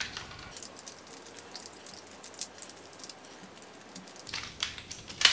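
Hand wheel pipe cutter being turned around 16 mm plastic-and-aluminium multilayer pipe: faint, irregular ticking and scraping as the wheel scores through the pipe wall, with a sharper click at the end.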